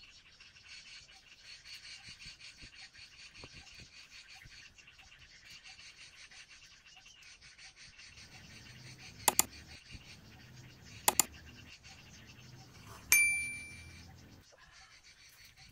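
A small ceramic tea cup clinks sharply and rings briefly, dying away over about a second, after two pairs of quick sharp clicks a few seconds earlier, over a faint steady high background hiss.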